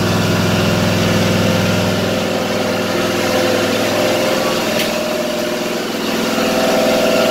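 Ariens zero-turn mower's 23 hp V-twin engine running steadily.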